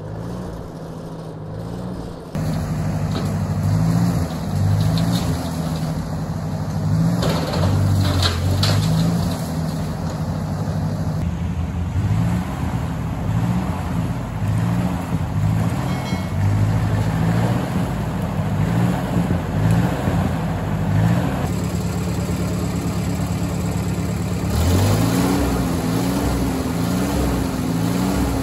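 1957 Ford Workmaster 641 tractor's four-cylinder gasoline engine running as the tractor drives, louder from about two seconds in.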